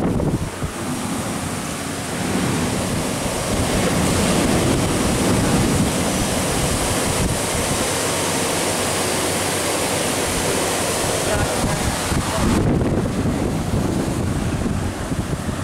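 Steady rushing machine noise around a fiber laser cutting machine: a broad hiss over a low rumble, with no cutting hiss. The upper hiss drops away about twelve and a half seconds in.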